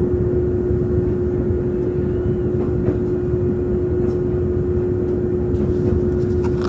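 Izuhakone Railway 5000 series electric train running, heard from inside the car: a steady rumble with a constant hum, and a few faint clicks near the end.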